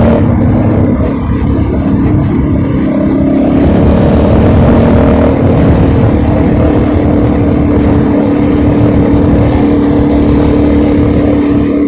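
Loud, rough rumbling of wind buffeting the microphone on a moving bike, with a steady engine drone setting in about three seconds in.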